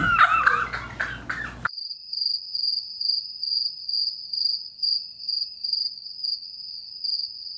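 Loud laughter cuts off abruptly under two seconds in. A cricket's chirping follows over dead silence: a high, pulsing trill repeating a few times a second, edited in as the comic 'crickets' sound effect.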